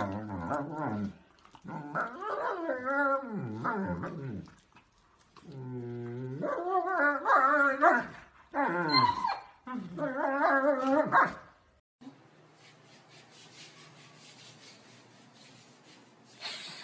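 Two dogs play-fighting and vocalizing in several runs of wavering cries whose pitch bends up and down, ending about eleven seconds in.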